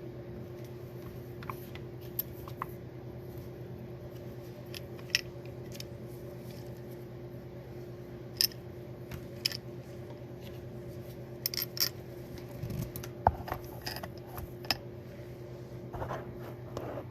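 Scattered light metallic clicks and clinks as parts of a Honda manual-transmission gear selector are handled and fitted together, over a steady low hum.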